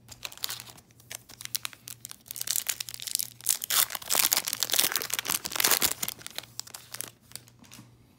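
Wrapper of a 2019 Topps Series 2 hobby pack of baseball cards being torn open and crinkled: a run of crackling that is loudest in the middle and dies away about seven seconds in.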